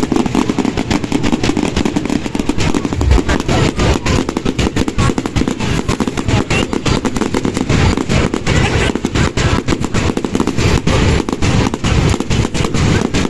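Fireworks going off in a dense, continuous barrage of rapid cracks and bangs.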